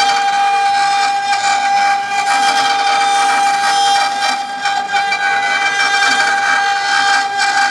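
HG-1212 CNC router spindle whining at one steady high pitch as its bit carves a wooden blank turning on the rotary axis, with a hiss of cutting underneath.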